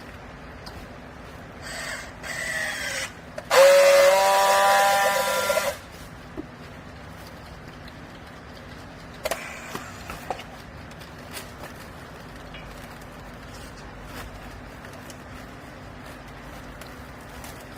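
Baling press machinery running with a steady low hum; about two seconds in a short squeal rises, then a loud steady whine sounds for about two seconds, followed by a few sharp clicks in the middle.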